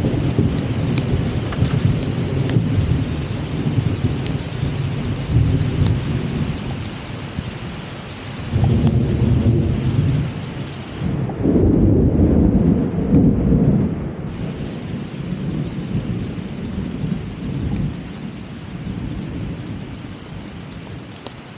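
Rain falling steadily with a long roll of thunder. The low rumble swells about nine seconds in and again a little later, then dies away toward the end.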